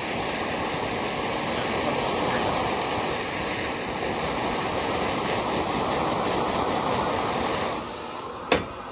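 Heat gun blowing a steady rush of hot air onto the plastic tank, melting the plastic filler into the weld seam until it goes clear. The rush drops away about eight seconds in, followed by a single sharp knock.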